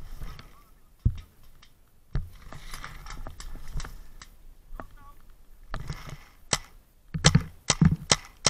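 Paintball marker shots. There is a single pop about a second in and another at about two seconds, then a rapid string of shots, several a second, near the end.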